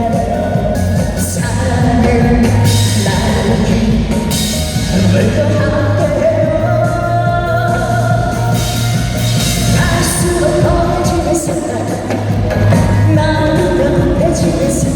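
Male trot singer singing live with instrumental accompaniment.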